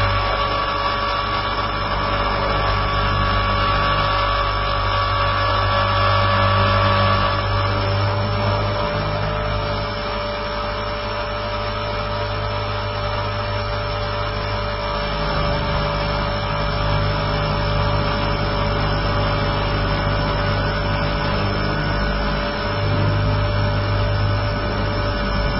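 T-Rex 450 electric RC helicopter heard close up from its own onboard camera in flight: a steady whine from the motor and gears over the low thrum of the rotor, which shifts a little now and then as it manoeuvres.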